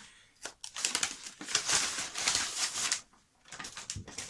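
Paper or wrapping being handled and crinkled, with a few sharp taps at first and a long stretch of rustling through the middle.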